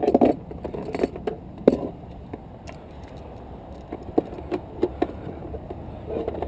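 Tire-inflation gear being pulled out and handled: scattered clicks, knocks and rustling, busiest in the first two seconds, then sparser clicks.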